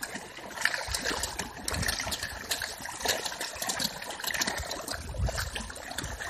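Many fish thrashing at the surface of shallow water, a continuous irregular splashing and slapping of water.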